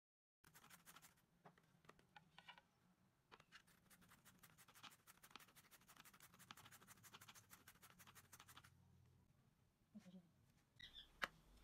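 A red carrot being grated on a plastic julienne grater: rapid rasping strokes that stop about nine seconds in. A few light handling sounds and one sharp knock follow near the end.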